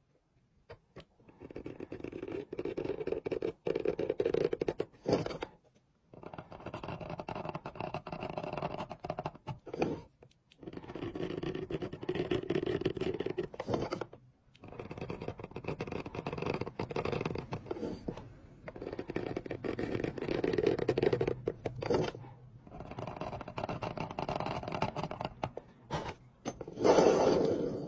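Hand graver scraping grooves into a red-coated metal plate, a gritty scratching in repeated strokes of a few seconds each with short pauses between, about seven in all, the last near the end the loudest.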